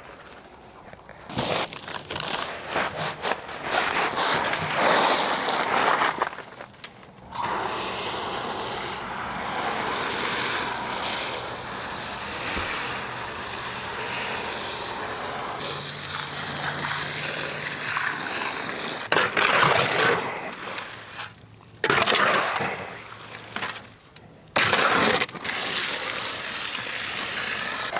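Concrete mix being prepared for a slab pour: gritty scraping and crunching in uneven bursts, with a long stretch of steady rushing noise in the middle.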